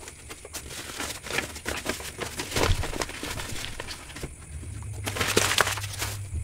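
Close-up eating sounds of pork satay being chewed: irregular wet mouth clicks and smacks, with a denser run of chewing about five seconds in.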